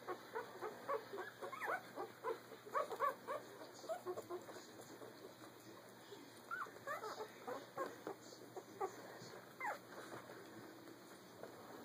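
Sixteen-day-old Keeshond puppies whimpering and squeaking in many short, high cries, thickest in the first few seconds and again just past the middle, then dying away near the end.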